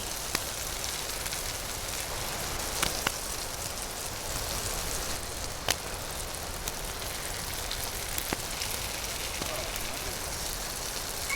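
Venison chops sizzling on a grill over a wood campfire, a steady rain-like hiss, with a handful of sharp pops and crackles from the burning wood.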